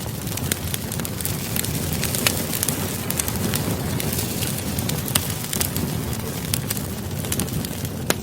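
Campfire burning: a steady low rumble of flames with frequent, irregular sharp crackles and pops from the burning wood.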